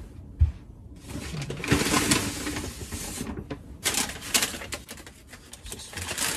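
Paper carrier bag and wrapping paper rustling and crinkling as a wrapped clock is lifted out and handled. A sharp knock comes about half a second in.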